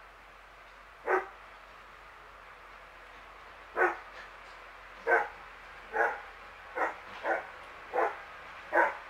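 A dog barking: one short bark about a second in, then seven more at roughly one-second intervals from about four seconds in.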